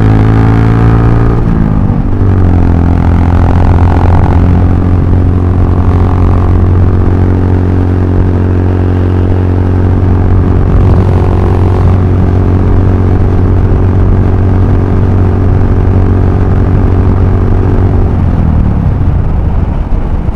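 Honda Grom 125's single-cylinder four-stroke engine running under way at a steady pitch. The pitch rises, drops about two seconds in, then holds steady, and falls away near the end.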